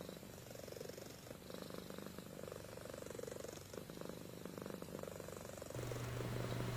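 Domestic cat purring, a fine rapid rumble that swells and fades with each breath. Near the end it gives way to a steady low hum.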